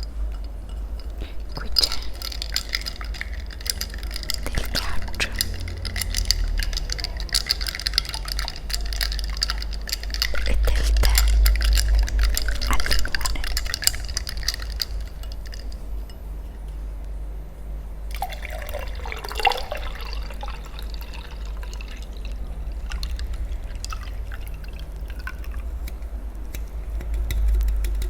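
Close-miked eating and drinking sounds: many small clicks and a liquid sound against glass, with one sound that falls and rises in pitch about two-thirds of the way through. A steady low rumble runs underneath.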